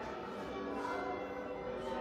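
Church tower bells being rung in changes: many overlapping bell tones ringing on together, heard from inside the church below the tower.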